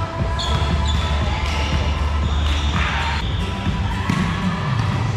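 Indoor volleyball play on a hardwood gym court: sneakers squeaking, the ball being struck, and players calling out, all echoing in a large hall, over a steady low hum.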